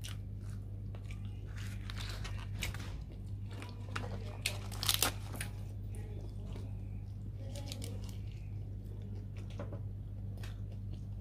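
Close-up eating sounds of a person tearing apart and chewing roasted chicken: scattered crackles and wet clicks, busiest about halfway through. A steady low electrical hum sits underneath.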